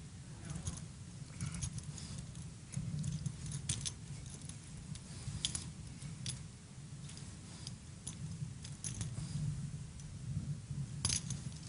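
Quiet room tone with a steady low hum and scattered faint clicks and rustles, with a short cluster of sharper clicks near the end.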